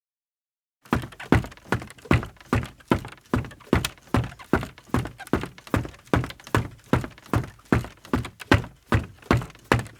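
Footsteps of a man in sneakers walking on a creaky wooden floor, starting about a second in and going on at a steady pace of roughly two steps a second.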